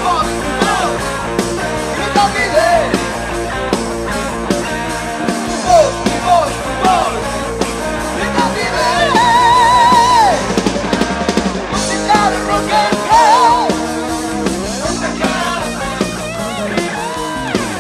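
Late-1980s Uruguayan rock band recording: electric guitar, bass and drums playing a rock song, which starts abruptly after a short gap. A held, wavering guitar or vocal note sounds about halfway through.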